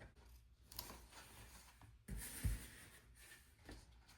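Quiet handling of paper stickers and a planner page: a few soft clicks and a brief rustle with a low thump a little after two seconds in.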